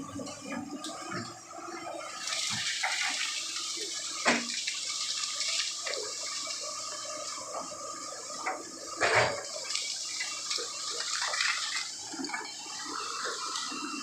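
Water pouring and splashing steadily from about two seconds in, with two loud knocks, one about four seconds in and one about nine seconds in.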